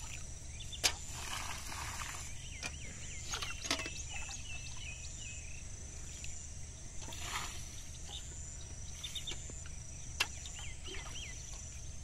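Outdoor rural ambience: small birds chirping in short clusters of curved notes, over a steady high insect drone, with a few sharp clicks.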